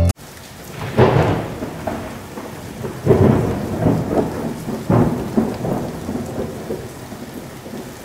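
Heavy rain with thunder: a steady hiss of rain, with three loud rolls of thunder about a second, three seconds and five seconds in, each dying away slowly, and smaller rumbles after.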